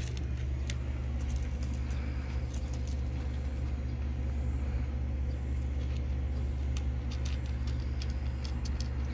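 Cat crunching dry kibble from a stainless steel bowl, heard as irregular small crisp clicks, over a steady low hum.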